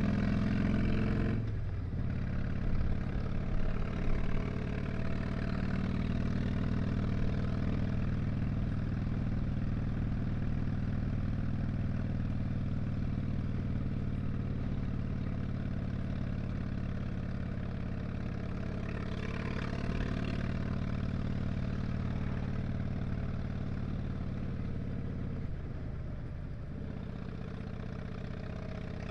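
2007 Harley-Davidson Dyna Street Bob's Twin Cam 96 V-twin running at a steady, low engine speed. A hiss above the engine note drops away about a second and a half in and comes back briefly about twenty seconds in.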